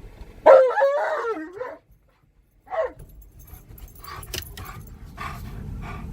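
Alaskan malamute howling in a wavering, talking voice: one long call about half a second in, then a short yelp near the three-second mark. It is the excited, worked-up vocalizing of a dog that has spotted something outside.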